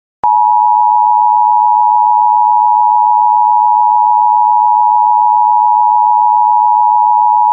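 Emergency Alert System attention signal: the steady two-tone alarm of 853 and 960 Hz sounding together, starting about a quarter second in and held unbroken. It marks the start of an emergency alert message.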